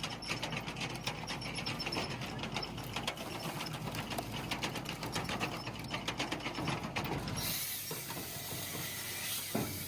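Home-built firewood processor's mechanism running with a rapid, irregular clicking clatter. About seven and a half seconds in, the clicks thin out and a steady hiss takes over for about two seconds.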